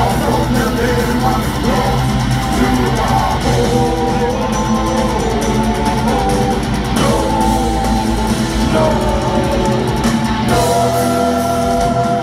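Heavy metal band playing live and loud: distorted electric guitars, drums and a lead vocal singing.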